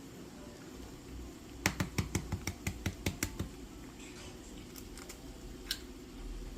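An egg tapped against the edge of a bowl to crack it: a quick run of about ten light taps, roughly six a second, then a few single clicks near the end.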